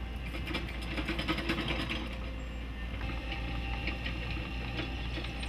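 Heavy machinery running: a steady low engine hum with fast, irregular clattering and ticking over it.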